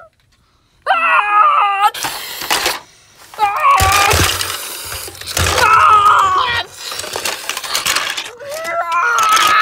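LEGO bricks crashing and clattering as a toy ship is smashed apart, mixed with screaming cries in a voice, starting about a second in.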